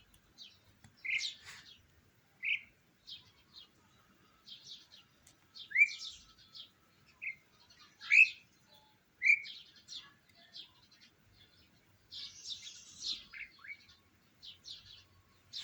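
Small birds chirping: a run of short, high chirps with a few louder rising calls about six, eight and nine seconds in, and a busier flurry of chirps near the end.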